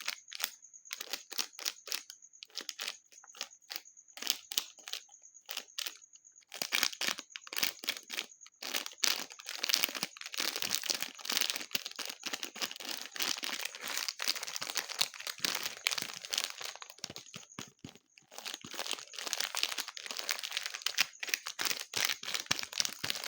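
Slime being squeezed and pressed by hand, giving a run of small crackles and pops, spaced out at first and much denser from about six seconds in.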